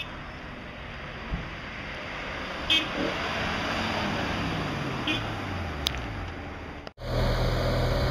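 Road traffic with a car driving past, its engine note falling steadily as it goes by: the black BMW M5 estate's V10. Two brief high chirps come about two and a half seconds apart. About seven seconds in the sound cuts to a louder, steady low engine idle.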